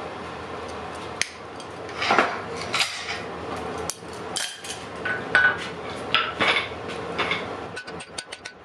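Metal tools clinking and knocking on a blacksmith's anvil as a red-hot iron bar is handled, then near the end quick, regular hand-hammer blows, about four a second, forging the glowing bar on the anvil.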